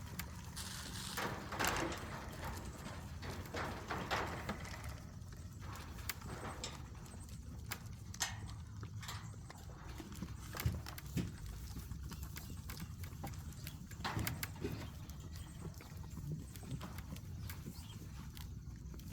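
Goat hooves clopping and knocking on the barn floor, with scattered short knocks at irregular intervals over a steady low hum.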